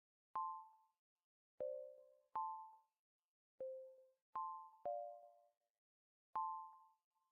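Sparse background music: seven single bell-like struck notes, roughly one a second, alternating between a higher and a lower pitch, each ringing briefly and dying away.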